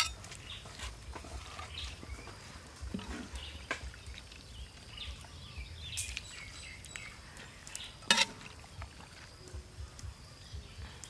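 Metal ladle and spatula clinking and scraping against a steel wok while noodles are lifted and turned in sauce. There are a few sharp clinks, the loudest about eight seconds in, among lighter scrapes.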